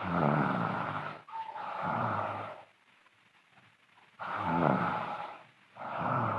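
A sleeping girl snoring loudly: two breaths, each a pair of snores about a second long with a short pause between, and a faint whistle in some of them.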